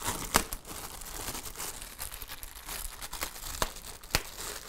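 Clear plastic wrapping crinkling and rustling as it is pulled off a plastic steamer plate, with a few sharp clicks scattered through.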